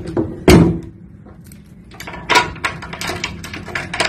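A loud thump about half a second in, then a run of clicks and rustles from a phone being handled against clothing.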